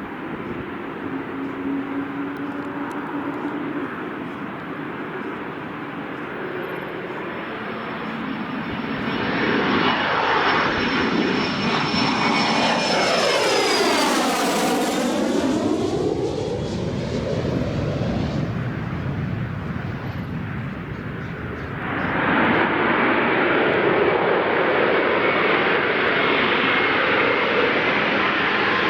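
Airbus A380 jet engines on final approach, passing low overhead with a whine that falls in pitch as it goes by. About two-thirds of the way through, a louder, steady jet noise sets in suddenly and holds.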